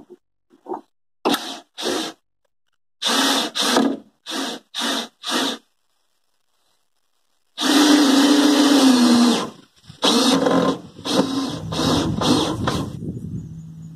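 Cordless drill driving screws up through a 2x4 into the underside of a wooden porch: a series of short trigger bursts, then a run of about two seconds with a steady motor whine, then more short bursts.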